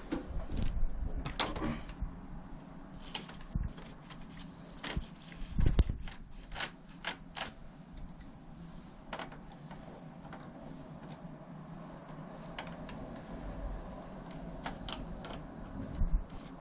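Irregular clicks and knocks of hard plastic parts being handled while a wall-mounted air conditioner is taken apart by hand, with a heavier thump about six seconds in and another near the end.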